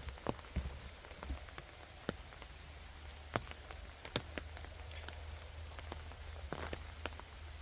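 Rain in a forest: scattered raindrops ticking irregularly onto leaves and surfaces over a soft steady hiss, with a few louder drops.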